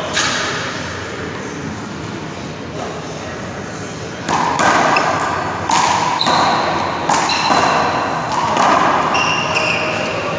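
One-wall handball rally: a small rubber handball is slapped by gloved hands and smacks off the wall and floor, sharp impacts every second or two that ring in the echoing hall. A few short high squeaks come in the second half.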